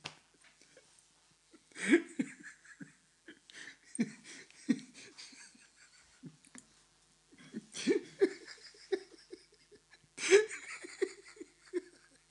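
A man laughing in several separate bouts, with quiet, breathy pauses between them.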